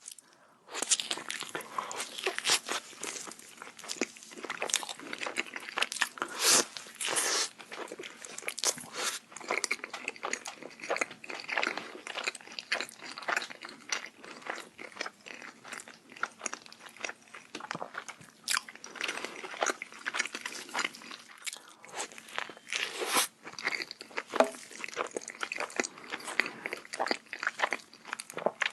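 Close-miked bites and chewing of a burger, a dense run of irregular wet crunches and crackles, typical of ASMR eating.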